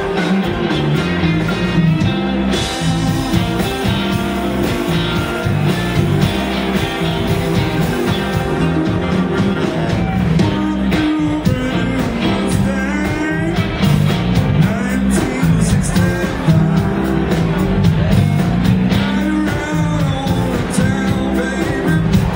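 Live blues-rock band playing loud and steady: electric guitars, saxophone, keyboard and drums, with a lead line bending in pitch over the beat.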